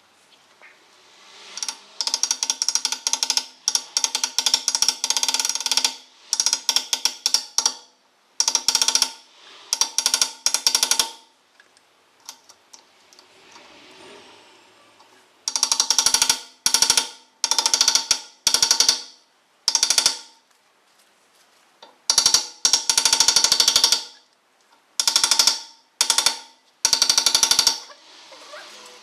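Metal hammer blows driving a new rear wheel bearing hub onto the axle: runs of rapid, ringing metallic strikes in bursts of one to four seconds, with short pauses between them.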